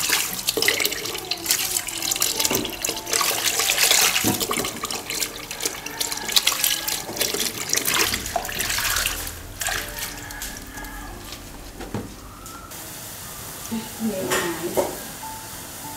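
Tap water running into a stainless steel sink while hands swish and splash a batch of leafy greens in it; the splashing thins out about halfway through.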